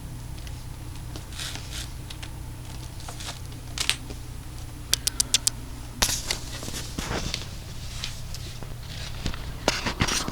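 Handling noises: scattered sharp clicks, taps and short rustles, including a quick run of about five clicks around the middle, over a steady low hum.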